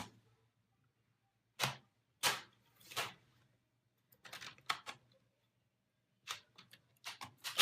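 Plastic clips of a laptop's LCD bezel snapping loose as the frame is pried off the screen lid: a string of sharp clicks and snaps, some single and some in quick clusters.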